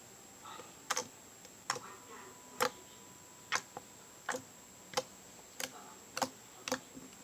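Borax slime being kneaded and squeezed by hand, giving sharp clicking pops about once a second at uneven spacing.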